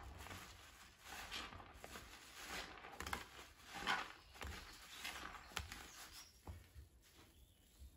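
A soap-soaked sponge being squeezed and released in thick foam, giving wet squelching and crackling bubbles in irregular swells. It eases off in the last second or so.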